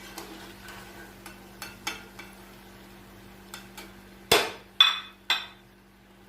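A metal spoon clinking and scraping lightly against a kadhai while fried baby potatoes are lifted out, then three loud, sharp metallic knocks with a brief ring, about half a second apart, a little past halfway.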